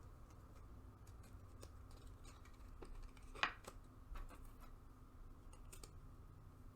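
Faint handling of trading cards and their packaging: scattered light clicks and ticks, with one sharper click about three and a half seconds in.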